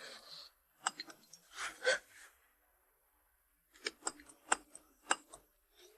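A few sharp clicks, a breathy sigh, then after a pause a quick run of about six sharp clicks.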